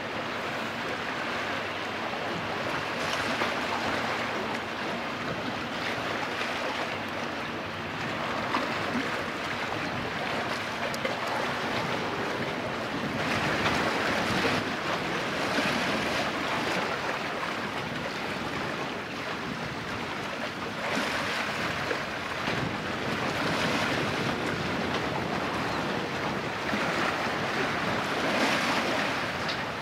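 Sea waves washing and breaking, a steady rush of water that swells and eases every few seconds.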